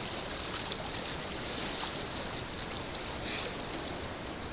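A swimmer doing breaststroke in calm water, making faint splashes over a steady hiss of water and wind.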